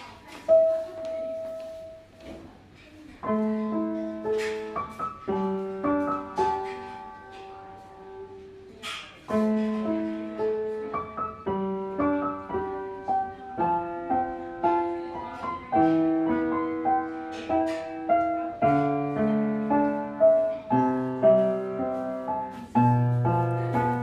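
Upright piano played solo: a slow, gentle melody over broken chords, each note struck and left to ring into the next. Deeper bass notes come in over the last few seconds.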